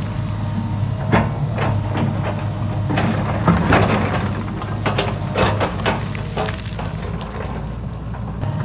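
Excavator engine running steadily, with a string of irregular knocks and clanks over it that thin out near the end.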